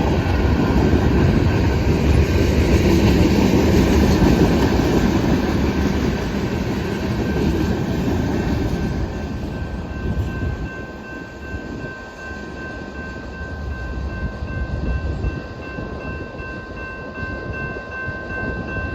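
Canadian Pacific freight train's cars rolling past with a loud low rumble that eases about halfway through to a quieter rolling sound. Steady high ringing tones run alongside.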